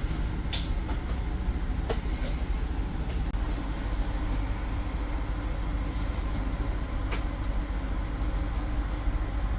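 Steady low rumble of a train, with a few short sharp clicks.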